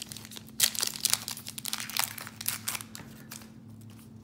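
Wrapper of a trading-card pack crinkling and crackling as it is opened and handled. The crackles come in a quick, dense run that thins out about three seconds in.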